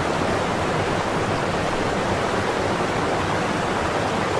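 Whitewater rapids pouring over rocks: a steady rush of falling water.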